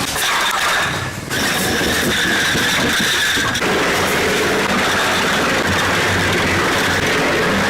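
Machinery running with a steady, loud mechanical noise that changes abruptly a little over a second in and again about three and a half seconds in.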